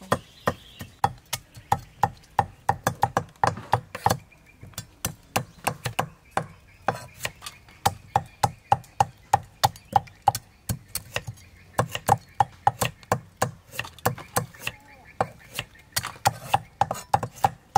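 Cleavers chopping on thick round wooden chopping blocks, cutting through prawn shells and legs: quick, fairly even strikes about three a second, with a couple of short pauses.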